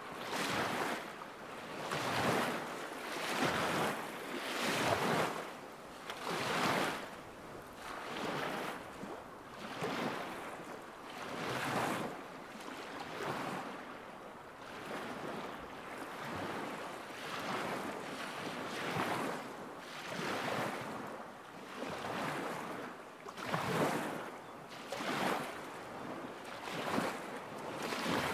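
Small waves lapping against a lakeshore, a soft splash and wash coming in a steady rhythm about every one and a half to two seconds.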